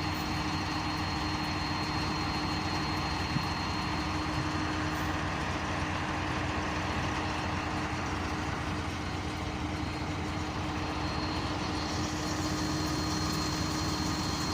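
Heavy diesel engine of construction equipment running steadily at idle, with a constant low hum and a thin high whine over it.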